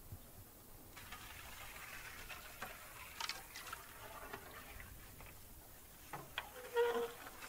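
Quiet splashing and dripping water with scattered light knocks and clicks, the sounds of a cautious approach through or over water. Near the end comes one short, pitched squeak.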